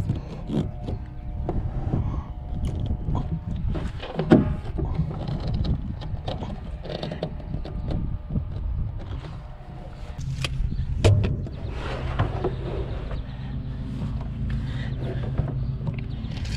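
White 3/4-inch PVC pipe handled against black PVC tee fittings, giving irregular knocks, clicks and scrapes, with a sharper knock about four seconds in. A steady low rumble runs underneath.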